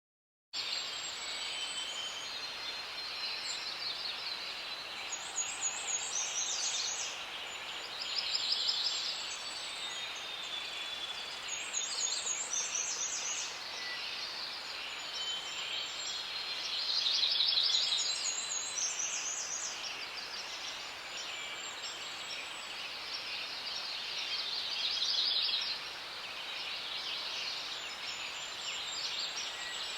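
Forest ambience: many birds chirping and calling over a steady high hiss, with louder bursts of rapid trills every few seconds. It starts abruptly about half a second in after silence.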